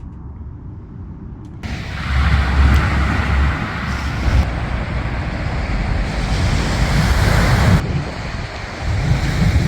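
Sea surf washing on the beach, with wind buffeting the microphone and adding a low rumble; the sound jumps in level abruptly a couple of times.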